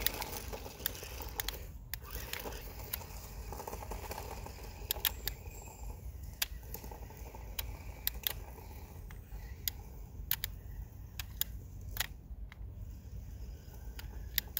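A small RC monster truck's electric drive runs faintly as the truck pulls away over grass, under sharp irregular clicks, about one or two a second, and a steady low rumble.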